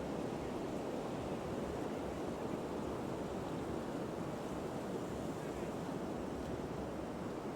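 Steady, unbroken outdoor noise of wind and ocean surf, with no distinct events.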